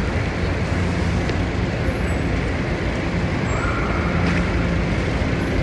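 Steady city street traffic noise: cars and buses passing together in a constant low rumble, with a faint high whine that comes and goes.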